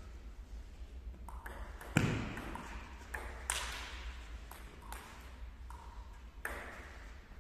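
Table tennis rally: the celluloid ball clicks off the paddles and the table again and again, each hit echoing in the sports hall. The sharpest hit comes about two seconds in.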